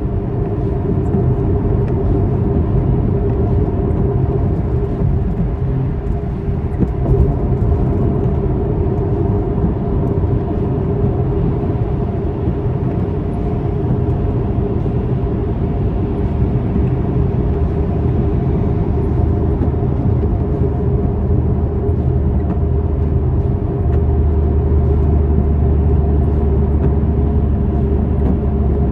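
Car running steadily: a continuous low rumble with a few steady tones in it. The drone deepens and grows a little louder about 24 seconds in.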